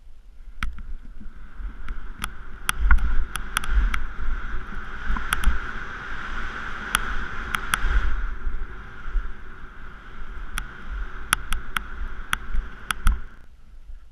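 Skis hissing as they carve through snow, with wind rumbling on a body-mounted action camera's microphone and scattered sharp clicks. The hiss stops about half a second before the end.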